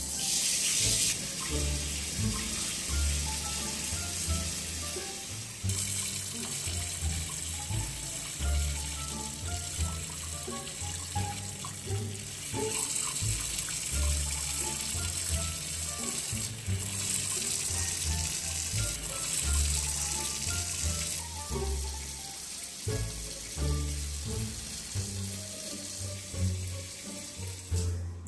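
Water running from a tap into a sink, the flow growing and easing a few times, under background music with a steady bass line.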